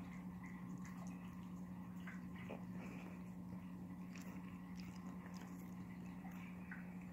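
A cat licking a dog's head and fur: faint, soft, wet licking clicks, over a steady low hum.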